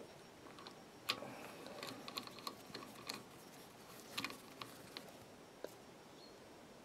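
Faint, scattered clicks and small scrapes of a screw being driven by hand with a small nut driver to fix the plastic brush box onto a Lucas ACR alternator.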